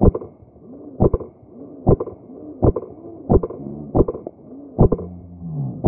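Footsteps thudding on cobblestones about once a second, with heavy breathing between them, sounding muffled. Near the end there is a short falling grunt.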